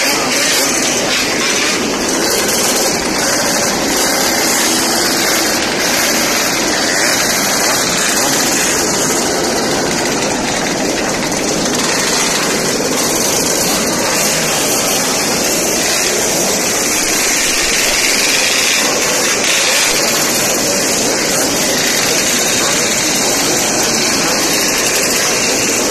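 Many Yamaha RX-King two-stroke motorcycles running together in a crowd, their engines and exhausts blending into one loud, steady din.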